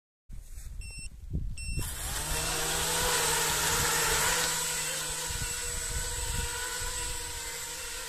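FPV mini quadcopter: two short high beeps, then its motors spin up with a whine that rises briefly and settles into a steady multi-pitched hum as it lifts off. Gusts of wind buffet the microphone throughout.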